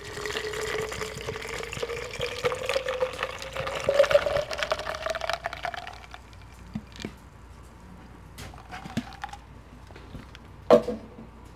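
Tea poured from a can into a plastic water bottle: a steady pour whose pitch rises as the bottle fills. The pour stops about six seconds in, followed by faint clicks and one sharp knock near the end.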